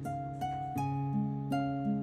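Background music: plucked acoustic guitar, with a new note or chord about every half second.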